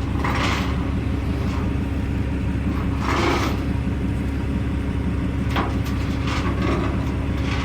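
Large truck's engine idling steadily with a low rumble, with a few short bursts of hiss over it, the first about half a second in and another about three seconds in.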